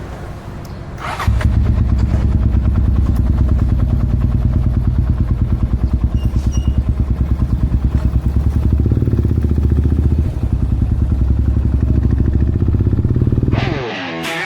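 Motorcycle engine running with a steady, even pulse, growing louder about a second in and holding steady after that. Guitar music comes in near the end as the engine sound stops.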